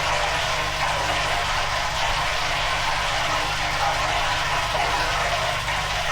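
Old Hotpoint washing machine running, its motor and drum turning with a steady whirring noise over a low hum.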